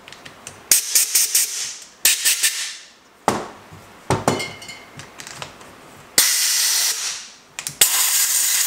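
Compressed-air blow gun hissing in sharp blasts through a two-stroke carburetor's jet and air-screw passages to clear them after cleaning: several short pulsed bursts, then two longer, steadier blasts in the last few seconds. A knock or two sounds as the carburetor body is handled.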